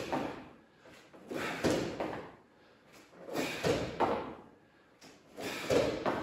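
A person doing a bodyweight leg exercise, with a short movement-and-effort sound repeating about every two seconds as each rep is done.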